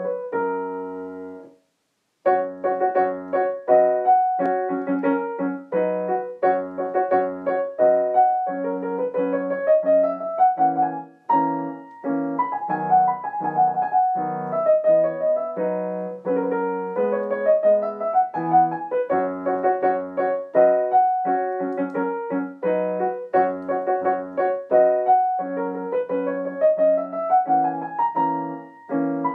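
Piano playing a slow, chordal piece with rising runs of notes; it breaks off into a moment of silence about two seconds in, then resumes and carries on.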